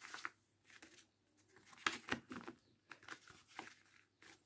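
A sheet of paper rustling and crinkling as it is folded by hand, its corners pressed down to the centre crease, in a run of short, irregular scrapes, the loudest about two seconds in.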